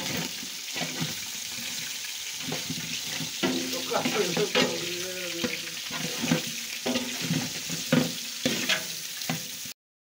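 Coati meat sizzling as it fries in a large aluminium pot, stirred with a spoon that clicks and scrapes against the pot. The sound cuts off suddenly near the end.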